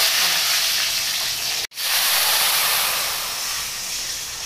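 Curry leaves and tempering spices sizzling loudly in hot oil in an aluminium kadai. After a sudden break a little under two seconds in, tamarind water poured into the hot oil hisses and slowly dies down.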